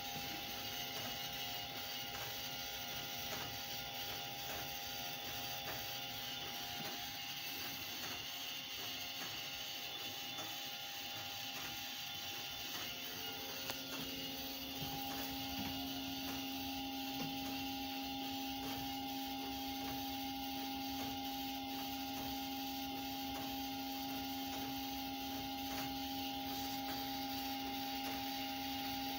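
Steady mechanical hum and whirr from a standing Choshi Electric Railway 2001-series electric railcar's onboard equipment, heard inside the car. A steady whine comes in about halfway through and holds, without rising or falling in pitch.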